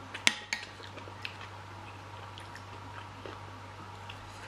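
A metal serving fork clinks sharply twice against a glass bowl and plate in the first half-second, with a softer clink about a second later. Quiet chewing and small utensil ticks follow over a low steady hum.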